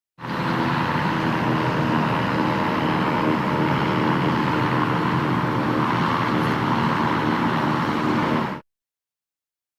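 Blimp's engines and propellers running with a steady drone, which stops abruptly near the end.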